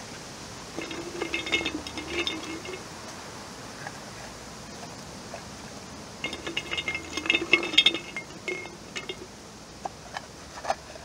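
A hand rummaging through dried plant stalks, wine corks and pine cones in a large glass jar, the pieces rattling and clinking against the glass in two bouts of about two seconds each, with a few single clicks near the end.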